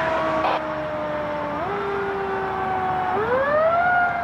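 Fire engine siren wailing, its pitch slowly falling, nudged up about one and a half seconds in, then climbing steeply to a higher pitch about three seconds in before it begins to fall again.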